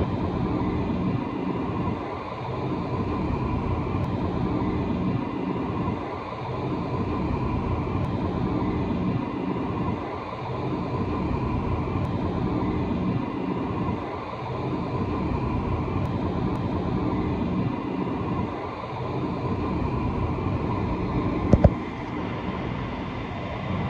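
Car wash dryer blowers (Superior Tempest) running, heard from inside the car: a loud, steady rush of air that dips briefly about every four seconds as the oscillating nozzles sweep past. A single sharp knock near the end.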